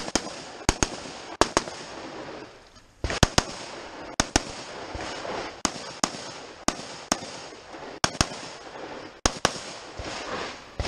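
Rifle shots fired in quick pairs, about nine pairs over ten seconds, each sharp crack trailed by a brief echo.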